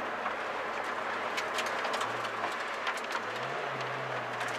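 Suzuki Swift rally car running at speed, heard from inside the cabin: steady road and engine noise with scattered ticks and rattles, and the engine note rising about three seconds in.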